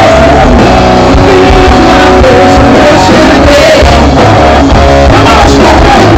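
Loud rock band playing: electric guitar, bass and drums with singing.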